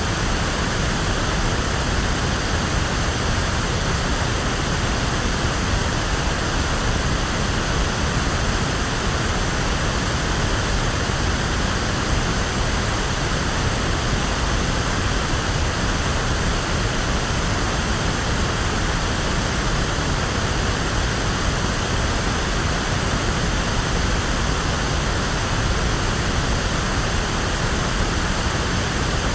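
Electronically generated pink noise: a steady, unchanging hiss with strong bass, like a waterfall or surf.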